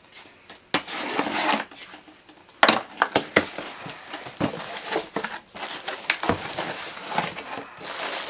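A parcel being opened by hand, its packing material crinkling and rustling in irregular bursts, with several sharp crackles and knocks.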